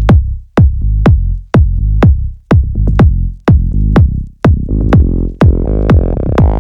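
Electronic dance music with a heavy kick drum about twice a second, and synth chords swelling in near the end.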